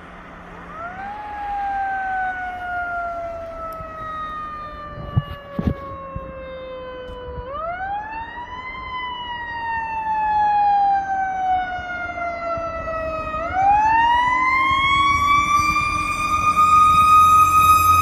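Fire truck's mechanical siren winding up and coasting down: each time the wail rises quickly, then sinks slowly in pitch for several seconds, and it is wound up three times, the last held high. It grows louder as the truck approaches, and the low rumble of its engine comes in near the end.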